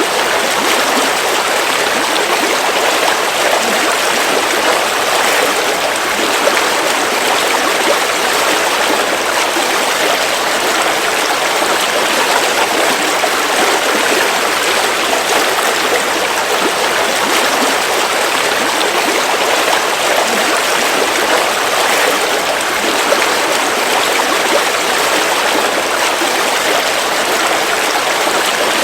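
River water flowing steadily: an even, continuous rush with no pauses or changes.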